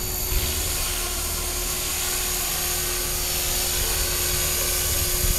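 Align T-Rex RC model helicopter in flight: a steady high-pitched whine from its motor and drivetrain along with the rotor noise, holding an even level.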